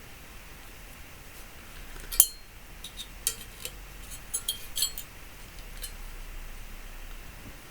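Metal parts from a dismantled microwave clinking as they are handled: one sharp clink with a brief ring about two seconds in, then a quick run of lighter clinks.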